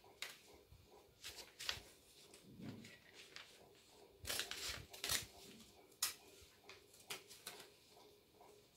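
Child's scissors snipping paper, with the paper rustling as it is handled: scattered short crisp snips and rustles, the loudest a little past four and five seconds in and at six.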